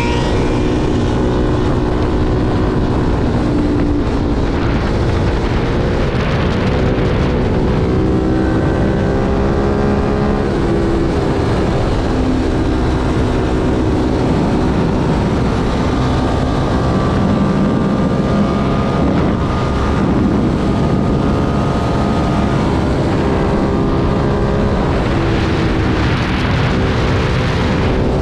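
Ducati Monster 1200's V-twin engine under way, its revs rising and falling repeatedly as the rider accelerates and backs off through the gears. Heavy wind rush on the microphone runs under the engine.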